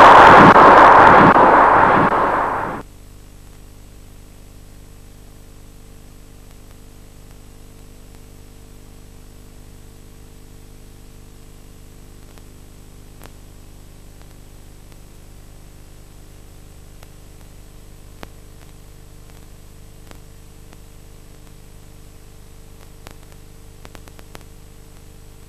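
A loud rushing noise fades over the first few seconds and cuts off abruptly, leaving a steady faint electrical hum and hiss with a few faint clicks.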